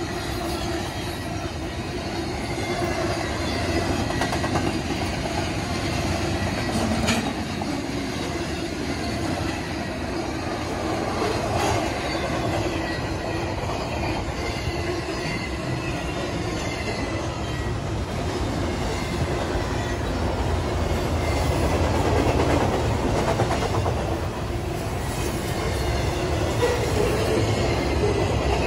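Double-stack intermodal freight cars rolling past close by: a steady noise of steel wheels on rail, with a couple of sharp clanks about a third of the way in.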